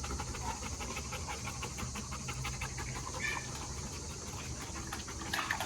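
American bully dog panting rapidly and steadily with its tongue hanging out, shedding heat after hard exercise in the heat.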